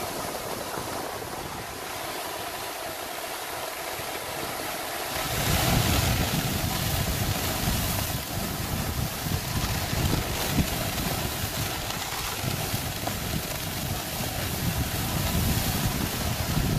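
Wind on the microphone: a light steady hiss at first, then heavy gusting rumble from about five seconds in.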